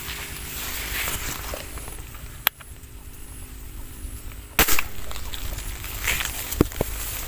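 Air gun fired once, a sharp report a little past halfway, with a fainter sharp click about two seconds before it.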